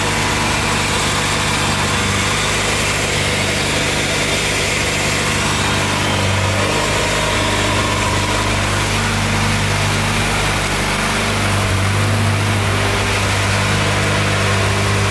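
Turbocharged Honda B18C four-cylinder engine idling steadily, with all its exhaust gaskets newly replaced and no exhaust leak to be heard.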